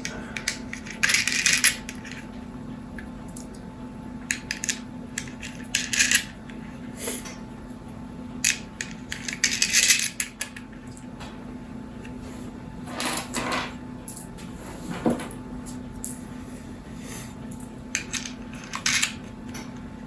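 Small metal nuts and terminal hardware clinking and scraping as they are threaded by hand onto battery cell terminal studs. The clinks come in irregular clusters, with a faint steady hum underneath.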